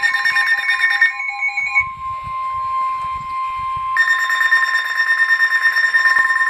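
Emergency alert tone for a severe thunderstorm warning: a steady, single-pitched NOAA Weather Radio–style 1050 Hz warning alarm tone. A higher, rapidly pulsing electronic alarm beep is layered over it; the beep stops about two seconds in and starts again about four seconds in.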